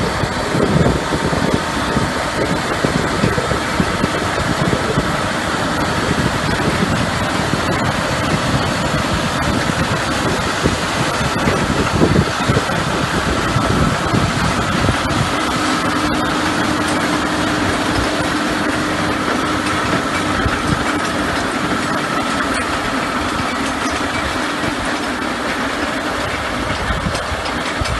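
John Deere tractor running steadily under load as it drives a PTO-driven Gramegna crankshaft spading machine through the soil, with a faint steady whine over the engine.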